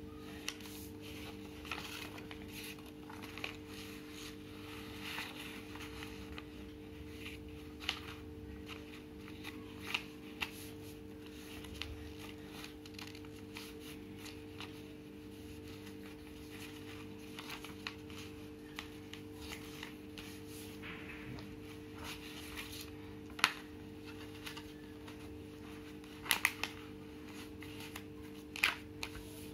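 A sheet of paper being folded and creased by hand into a pleated fan: soft rustling with scattered sharp crinkles, the loudest three near the end, over a steady low hum.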